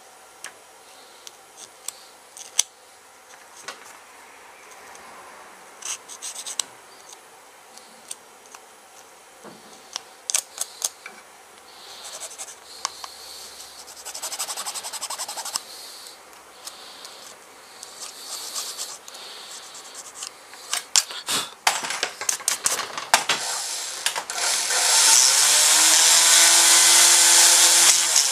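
Light scraping and scattered clicks of hand-tool work on a speargun grip. About three-quarters of the way in, a small handheld rotary tool starts with a rising whine and runs loud and steady, grinding a shallow groove for the spear shaft into the grip.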